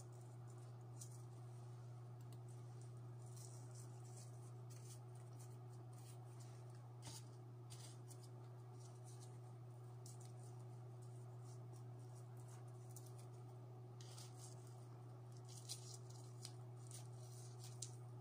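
Quiet room with a steady low hum and faint, scattered clicks of a computer mouse and keyboard being worked, a few in small clusters.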